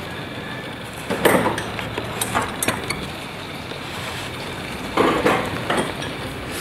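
Paintbrush clinking and scraping against a cup: two short bursts about four seconds apart, with a few sharp clicks between, over a steady background hiss.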